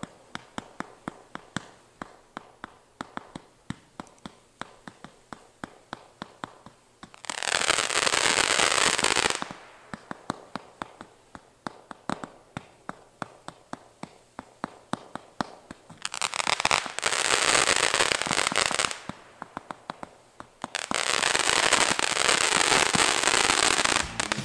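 Great Grizzly Night Time Frenzy, a 96-shot 200-gram consumer firework cake, firing shot after shot, about three sharp pops a second. Three long stretches of dense crackling from the shots' crackling tails come about a third of the way in, past the middle, and near the end.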